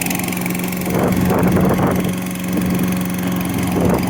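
Hyundai HYM510SP self-propelled mower's four-stroke petrol engine running steadily with an even, constant pitch, just after being started.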